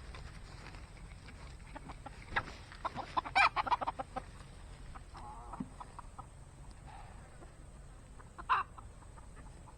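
Chickens clucking and calling: a run of loud, rapid clucks from about two to four seconds in, then a single short call near the end.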